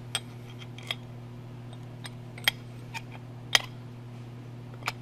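Several sharp metallic clicks and taps, the loudest about two and a half and three and a half seconds in, as the magnet-lined casing of a blade guide motor is worked back on over its armature against the pull of the magnets. A steady low hum runs underneath.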